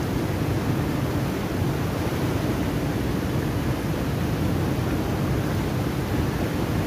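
Turbulent water rushing steadily out of a dam's sluice gates into white-water rapids: a constant, even rushing noise, heaviest in the low range.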